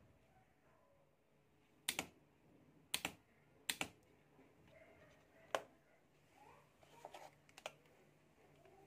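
Several sharp clicks and light knocks, a few of them in quick doubles, from the clips and probes of a homemade car-battery spot welder being handled.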